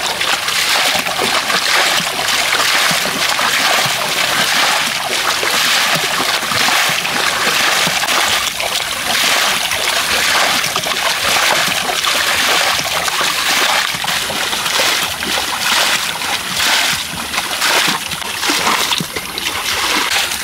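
Continuous irregular splashing and sloshing of water as a partly swamped bangka, a small boat, is bailed out by hand.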